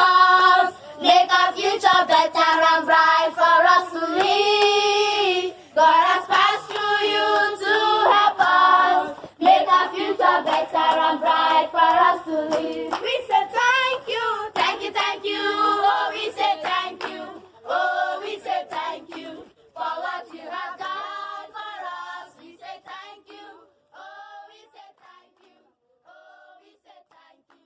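A group of voices singing together with rhythmic hand clapping, fading out over roughly the last ten seconds.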